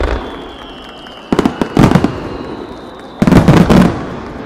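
Fireworks display: several aerial shells bursting together, heard as sharp reports in quick volleys. One report comes at the start, a cluster follows about a second and a half in, and the loudest volley comes about three seconds in.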